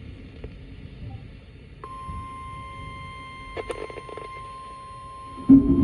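NOAA Weather Radio warning alarm tone (the 1050 Hz tone) heard over a radio receiver's static, starting about two seconds in and holding one steady pitch; it announces that a warning message is about to be read. Before it there is only static hiss with a few faint crackles, and a loud low rumbling burst breaks in near the end.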